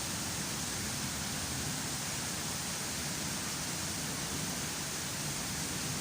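Heavy rain falling steadily, an even hiss with no thunder claps.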